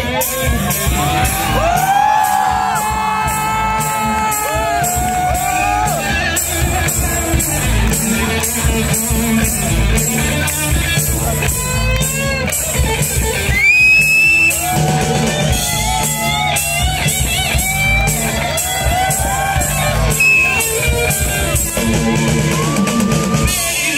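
Live rock band playing: drum kit and electric guitar under sung vocals through microphones.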